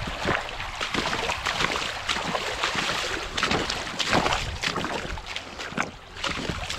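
Boots splashing through a shallow, stony stream, one step after another.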